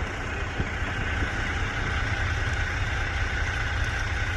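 A steady engine running, with a low rumble.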